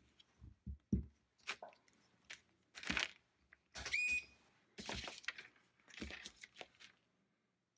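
Scattered small clicks, taps and crinkling as loose through-hole resistors are handled and checked with a multimeter, with one short high beep about four seconds in.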